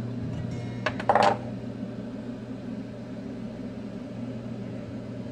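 A couple of sharp glass clinks about a second in, from a glass mixing bowl of marinade knocked by its spatula or set down on the counter. A steady low hum runs underneath.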